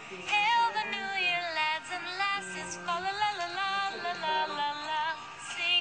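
Background music: a song with a high-pitched voice singing a quickly moving melody over an instrumental backing.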